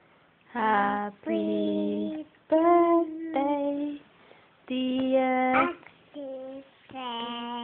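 A young child singing in a series of drawn-out notes, separated by short breaths.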